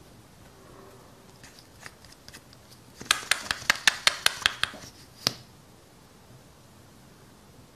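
Plastic mascara tube being twisted open by hand: a few faint ticks, then a quick run of about a dozen sharp plastic clicks, and a moment later one louder click as the brush wand pulls free.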